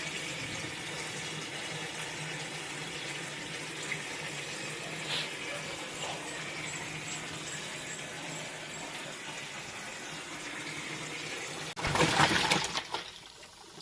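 Twin-tub washing machine running its wash tub: water swishing steadily over a low motor hum. About twelve seconds in comes a louder rush of noise lasting a second or so, then the sound falls away.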